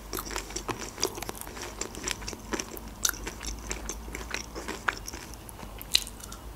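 Close-miked eating sounds: soft chewing and mouth clicks, then a crisp bite into a fried breaded onion ring about six seconds in.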